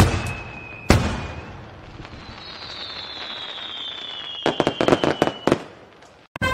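Fireworks: two sharp bangs about a second apart, then a long whistle falling slowly in pitch, with a quick string of crackling pops near the end before the sound fades out.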